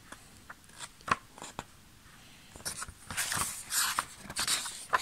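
Pages of a softcover comic book being flipped and handled, the paper rustling and snapping. A few sharp page-flicks come in the first two seconds, and the rustling grows denser in the second half.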